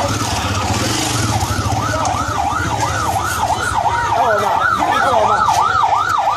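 Vehicle siren in a fast warble, rising and falling a few times a second and growing clearer after about two seconds. Under it run a steady low engine hum and crowd voices.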